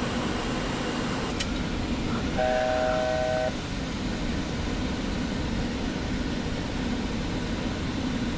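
Steady cockpit noise of a Boeing 737 in descent, from airflow and air conditioning. A click comes about a second and a half in, then a steady electronic cockpit tone sounds for about a second and stops abruptly.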